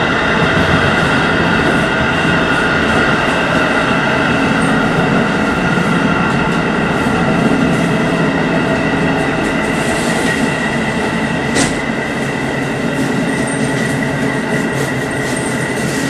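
JR Hokkaido 711 series electric multiple unit running at speed: steady running noise with a constant whine, and a sharp click from the track about twelve seconds in.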